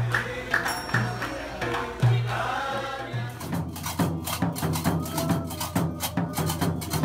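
Gnawa music: a low bass beat about once a second under chanted singing, then from about halfway through, rapid metallic clacking of qraqeb (iron castanets) over a steady low pulse.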